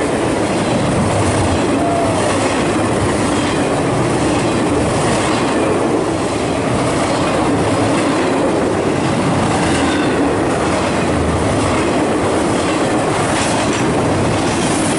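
Loaded double-stack freight train's cars rolling past close by: a steady, loud rumble of steel wheels on rail with clickety-clack over the rail joints.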